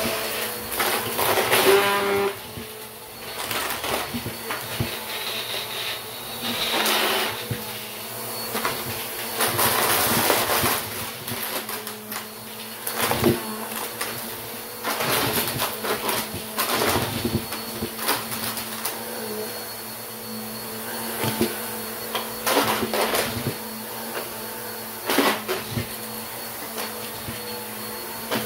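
Bissell upright vacuum cleaner running on carpet, its motor humming steadily while it sucks up plastic bottle caps and fake coins, which rattle and clatter irregularly through the machine.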